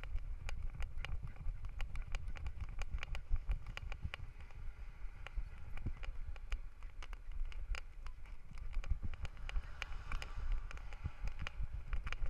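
Handling noise from a GoPro mounted on a miniature schnauzer's harness as the dog moves about: a steady low rumble with irregular clicks and knocks, several a second.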